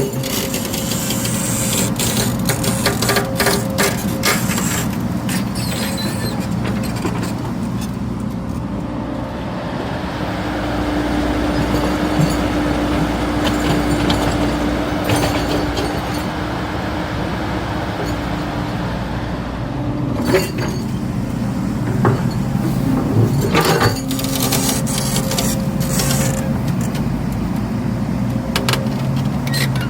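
Hydraulic excavator's diesel engine running, with scattered metallic clanks and knocks throughout. A steady higher tone sits over the engine for about ten seconds in the middle.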